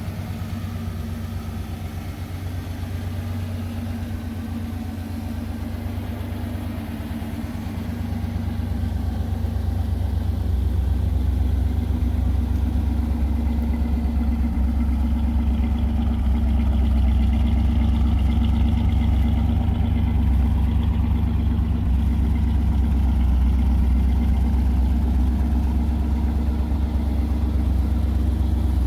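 Pontiac Firebird Trans Am's 5.7-litre Tuned Port Injection V8 running steadily, growing louder about ten seconds in and then holding.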